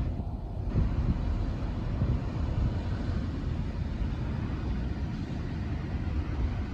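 Board wheels rolling over pavement with a steady low rumble and a few faint knocks, while wind buffets the microphone.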